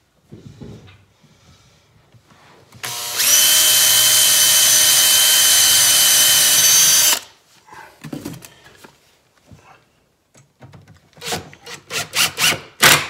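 Power drill running at a steady speed for about four seconds, boring a pilot hole in wood. Near the end comes a quick run of sharp clicks.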